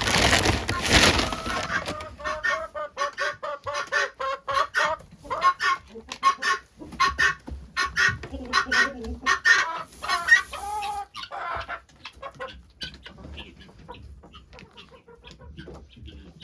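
Chickens clucking in a rapid run of short calls, with a rooster's crow ending in the first two seconds; the clucking thins out and fades after about eleven seconds.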